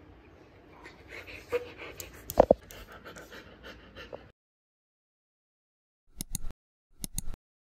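Siberian husky panting, with one brief sharp sound about two and a half seconds in. After a couple of seconds of silence, two short clicking sound effects.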